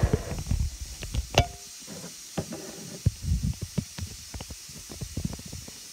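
Handling noise from a phone being propped up on a countertop: a run of light knocks, taps and rubbing close to the microphone that thins out near the end, over a steady faint hiss.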